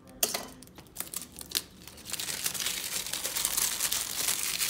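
Clear plastic packaging crinkling and crackling as it is handled and pulled open, with a few sharp snaps in the first second and a half, then steady crinkling from about two seconds in.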